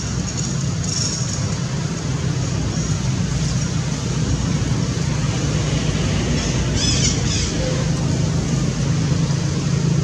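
Steady low engine rumble of nearby road traffic, like a vehicle idling close by. A few brief high-pitched chirps sound over it, twice around seven seconds in.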